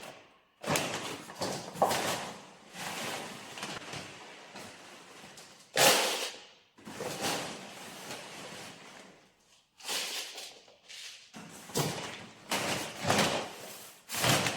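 Handling noises as chicken feed is gathered: a run of rustles, scrapes and thuds, with sharp knocks about half a second in and near six seconds.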